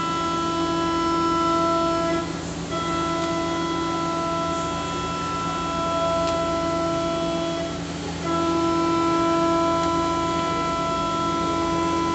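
Axis drives of a Romi C420 CNC lathe whining as the carriage is jogged along the bed with the panel joystick: a steady whine of several pitches over a low hum, pausing briefly twice, about two seconds in and about eight seconds in, each time coming back at a slightly different pitch.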